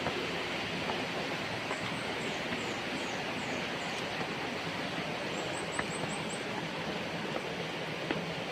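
Steady rushing background noise with a bird calling over it: a run of about seven high, thin, falling notes, then a couple of seconds later a quicker run of about six high notes.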